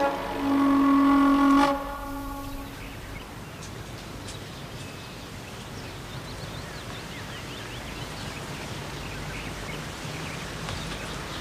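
A held chord of steady electronic tones that stops after about two seconds and fades away, as a 1970s sci-fi sound effect. It gives way to quiet outdoor air with faint, scattered bird chirps.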